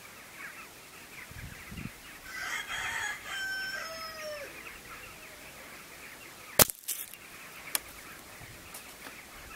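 A rooster crowing once: one long call that falls in pitch at its end, over faint outdoor background. A single sharp click comes about six and a half seconds in, with a smaller one a second later.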